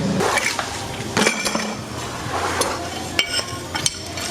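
Irregular light metallic clinks and taps of metal parts and tools being handled and set down.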